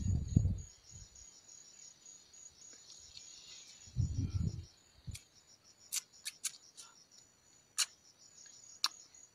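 Insects chirping steadily in a high, fast pulse. Two low thuds come at the start and about four seconds in, and a handful of sharp clicks come in the second half.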